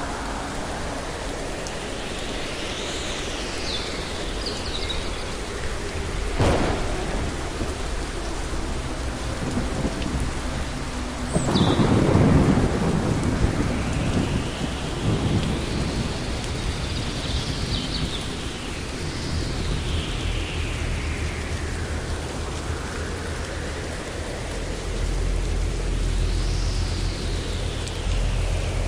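Thunderstorm with steady rain. A sharp crack of thunder comes about six and a half seconds in, a louder rolling rumble about twelve seconds in, and low rumbling again near the end.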